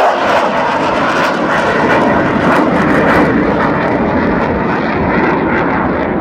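Avro Vulcan bomber's four Rolls-Royce Olympus turbojets under power on a low flypast: a loud, steady jet roar whose high end fades toward the end as the aircraft draws away.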